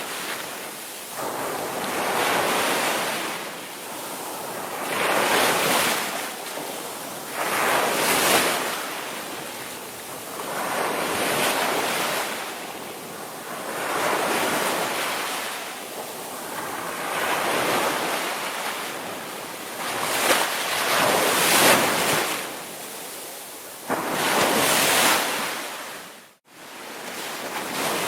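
Ocean surf: waves breaking and washing in, the roar swelling and fading every few seconds. Near the end the sound cuts out briefly.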